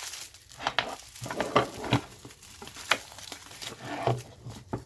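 Packaging rustling with irregular light clicks and knocks as the parts of a soap mold are handled.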